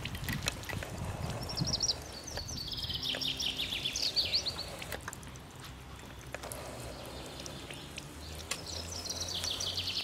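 A songbird singing in runs of rapid high trills, twice, over steady low background noise.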